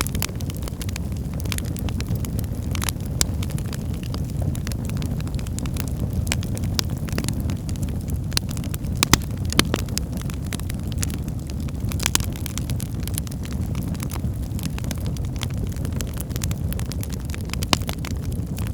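Wood fire burning in a fireplace: a steady low rumble of flames with frequent irregular crackles and pops from the burning wood, a few of them louder.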